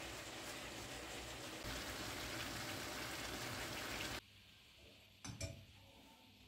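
Chicken strips, red pepper and onion sizzling as they are stir-fried in a frying pan. The sizzle cuts off suddenly about four seconds in, and a short knock follows about a second later.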